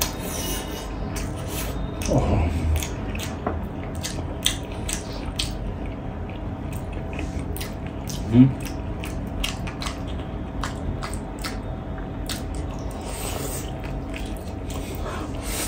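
Close-up eating sounds: biting and chewing a piece of spicy pork-leg pickle, with many short wet mouth clicks and smacks. There is a brief murmur about two seconds in and a sharper, louder mouth sound a little past the middle.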